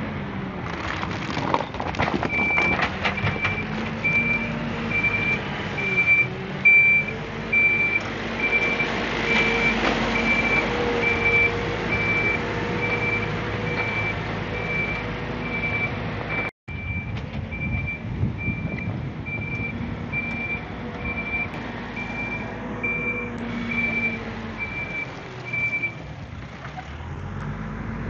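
Reversing alarm on earthmoving machinery beeping steadily at one pitch over a heavy diesel engine working, its speed rising and falling. A few knocks come in the first few seconds.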